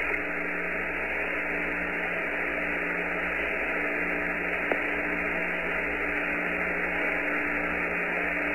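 Steady hiss and low hum of the Apollo 14 air-to-ground radio link with no one talking, and one faint click about halfway through.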